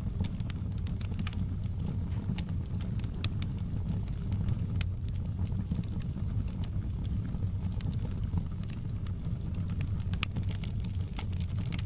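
Wood logs burning in a fireplace: scattered sharp crackles and pops over a steady low rumble of the flames, with a quicker run of pops near the end.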